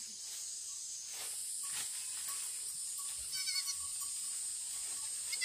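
A goat bleating once, short and faint, about three seconds in, over a steady high hiss.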